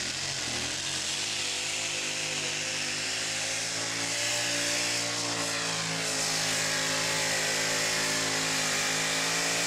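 Engine running steadily at fairly high revs, a loud, even drone.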